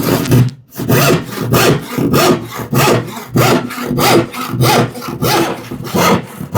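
Hand rip saw cutting across the grain of a plywood drawer bottom, in steady back-and-forth strokes of under two a second.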